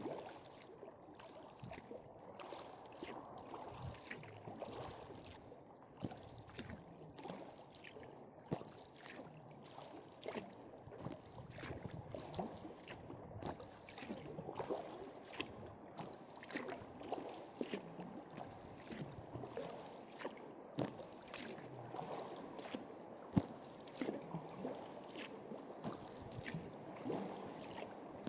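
Kayak paddle dipping into calm water, with many small, irregular splashes and drips, more than one a second, inside a rock tunnel.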